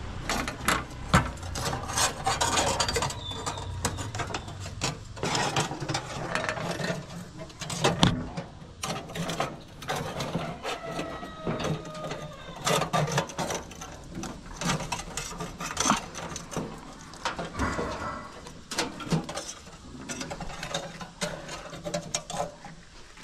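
Thin stainless steel strapping band being handled and bent around a pole, giving irregular metallic clicks, rattles and scrapes, with a sharp knock about eight seconds in.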